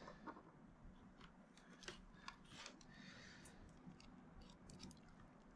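Faint, scattered clicks and light rustling of hands handling a Raspberry Pi board, its connectors and cables.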